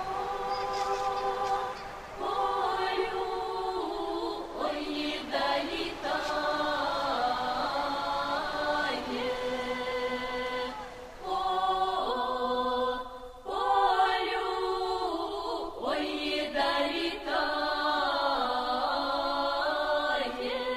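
Slow folk song sung in long drawn-out notes, the voices holding and sliding between pitches, with short breaks for breath between phrases.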